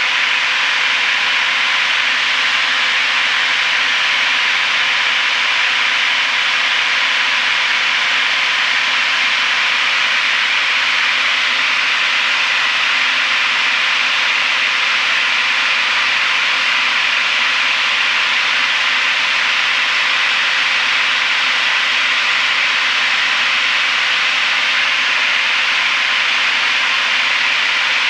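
Steady cabin noise of a Piper PA-32R Saratoga single-engine piston plane in flight: an even, unbroken engine-and-airflow hiss with faint steady hum tones underneath.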